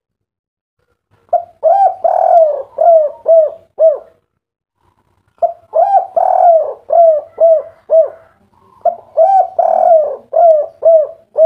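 Spotted dove (derkuku/tekukur) cooing the local 'kuk 3' song. It gives three phrases, each a longer coo followed by a run of short 'kuk' notes. The phrases start about a second in, about five seconds in and about nine seconds in.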